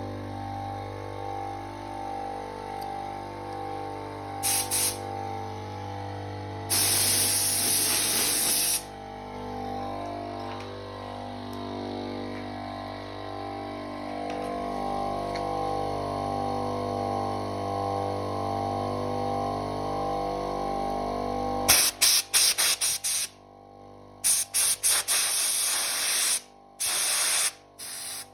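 Refrigerator compressor motors of a homemade air compressor humming steadily, with short blasts of compressed air hissing out about five and seven seconds in. The motors cut off about 22 seconds in, after which compressed air hisses out in a series of short on-off blasts.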